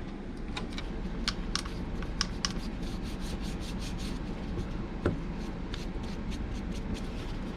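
Rubbing and scrubbing at a rusted RV door-lock key cylinder while it is cleaned with isopropyl alcohol: irregular small scratches and clicks, several a second, over a steady low hum.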